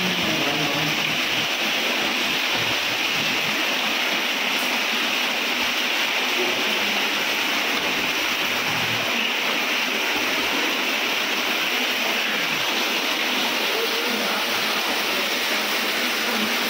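Water pouring steadily into a well from a horizontal seam in its rock wall, an even, unbroken rush.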